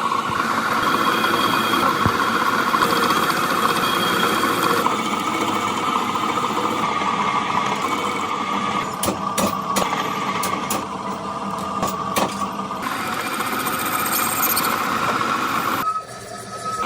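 Workshop machinery running steadily with a constant whine, a few sharp clicks partway through, and abrupt changes in texture where the footage is cut.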